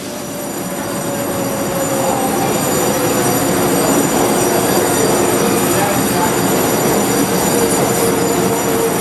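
A Taiwan Railway EMU500 electric commuter train running past the station platform as it pulls in, its rumble growing louder. A thin whine slowly drops in pitch over the sound.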